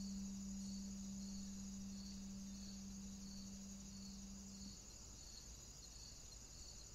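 Faint, steady high-pitched trill pulsing about three times every two seconds, like a cricket. Under it a low sustained hum fades out about two-thirds of the way through.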